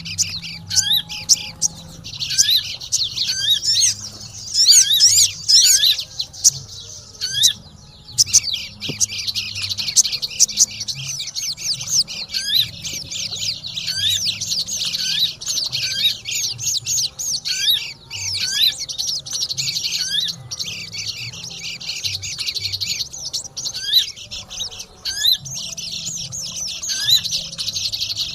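A dense, noisy chorus of sogon birds and pleci (white-eyes) chirping and twittering: rapid, high, overlapping chirps with only a brief thinning about seven seconds in.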